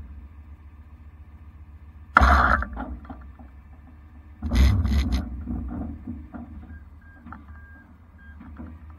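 Idling truck engine with a steady low hum, broken twice by a short, loud noisy burst, about two and a half seconds apart, each fading within half a second.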